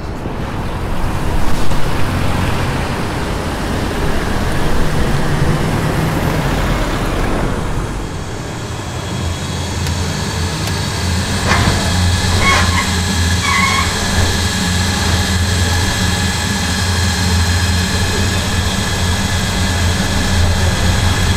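A steady rushing noise, then from about eight seconds in a steady low hum with a thin high whine from the boilers and pumps of a heating plant hall, with a few brief chirps partway through.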